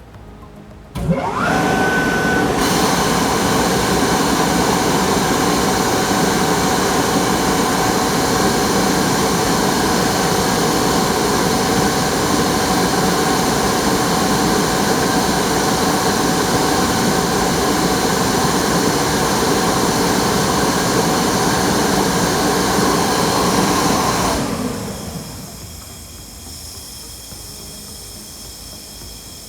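Quincy QMB30 30 hp rotary screw air compressor starting up, with a rising whine as the motor comes up to speed. It then runs loud and steady for over twenty seconds. Near the end the sound drops off sharply to a much quieter hiss.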